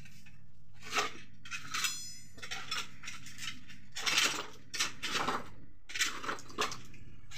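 A long metal rod clinking and scraping against broken concrete and rubble on a floor: irregular sharp clinks and short scrapes, one with a brief metallic ring about two seconds in.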